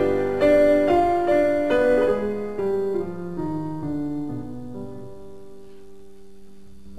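Background piano music: a slow run of single notes stepping downward and growing quieter, the last note held and left to die away near the end.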